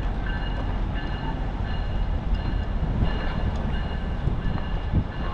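Steady low rumble of a heavy vehicle or engine, with a faint steady high whine over it.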